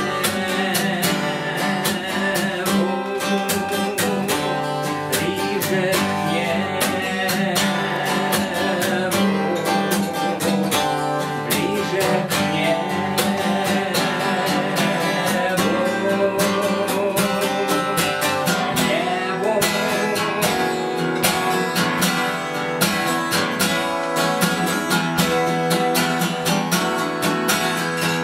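Steel-string acoustic guitar strummed steadily, accompanying a song.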